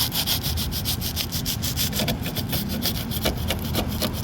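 A cutter blade sawing rapidly back and forth through cured expanding foam, trimming it flush with the car body, about eight to ten scratchy strokes a second, over a steady low rumble.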